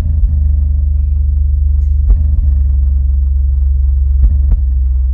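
Loud, deep bass from two CT Sounds 8-inch Meso subwoofers in a ported box, heard inside the car's cabin: a sustained low bass note, with a few brief sharp clicks.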